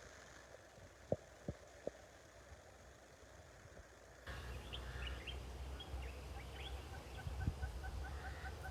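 A few faint clicks, then from about four seconds in, birds chirping over a low rumble, ending in a quick run of short repeated notes, about four a second.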